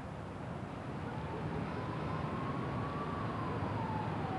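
Steady low rumble of urban background noise with a single distant siren wail that rises slowly in pitch, then falls away over the last couple of seconds.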